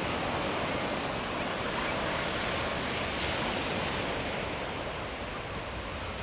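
Ocean surf washing onto a sandy beach: a steady rush of breaking waves.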